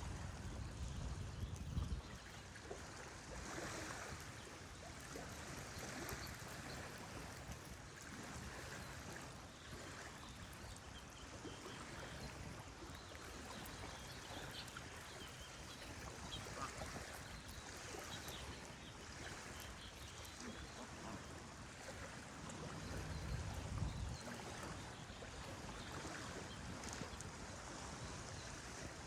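Running water of a stream, a steady rushing with scattered faint bird calls above it. A low rumble comes at the start and again about 23 seconds in.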